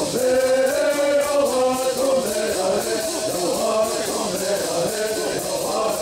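Native American bird singing: a group of men singing a chant-like song together, with gourd rattles shaken in a steady rhythm under the voices. A new sung phrase begins right at the start.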